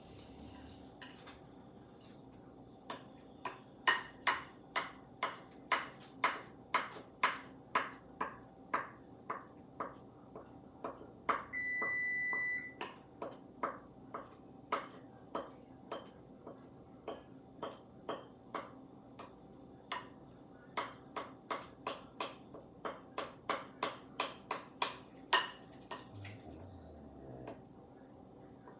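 Spatula scraping red velvet cake batter out of a mixing bowl into a glass baking pan, in quick repeated strokes about two a second, each a short sharp click. Near the middle a single electronic beep about a second long sounds from a kitchen appliance.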